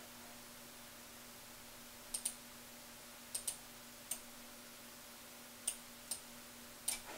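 Computer mouse button clicks: several short sharp clicks, some as quick press-and-release pairs, over a faint steady hum.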